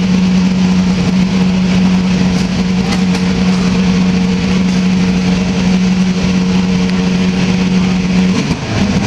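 A loud, steady mechanical drone at one constant pitch over a busy noisy background, stopping about eight and a half seconds in.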